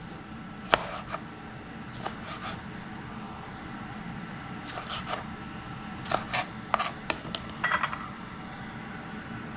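Chef's knife cutting tomatoes on a plastic cutting board: scattered taps and clicks of the blade meeting the board, in small clusters a second or two apart, ending with the knife laid down on the board.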